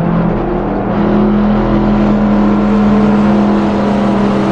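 Race car engine sound: a loud, steady engine note held at one pitch, starting and cutting off abruptly.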